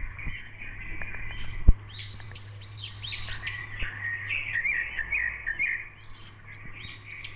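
Birds chirping and twittering in a busy chorus of quick, repeated arching notes over a steady low hum. A single sharp click about a second and a half in.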